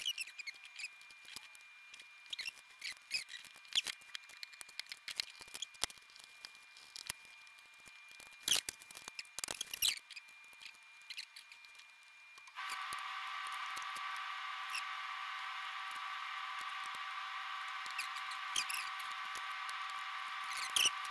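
Light, irregular clicks and ticks of small parts and tools being handled at a workbench. About twelve seconds in, a steady whir with a faint hum starts abruptly and keeps going, with a few clicks still over it.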